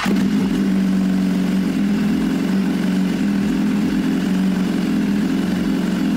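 BMW S1000RR motorcycle's inline-four engine idling steadily, just after being started.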